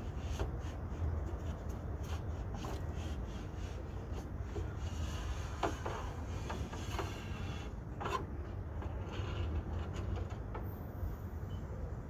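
Rubbing and scraping with scattered light clicks and a couple of sharper knocks as the window glass and loose parts are worked inside a stripped Mercedes G-Wagon door, over a steady low hum.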